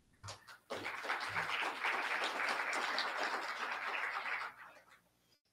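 Audience applauding for a graduate. The applause starts about a second in and dies away near the end.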